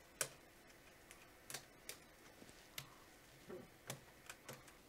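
Faint, irregular clicks and taps, about nine in all, as a gloved hand handles thin freshly printed PLA lines on a textured 3D-printer build plate.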